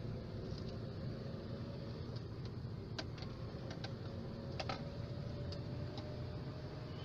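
Car driving, heard from inside the cabin: a steady low engine and road noise, with a scattering of light clicks and ticks in the middle.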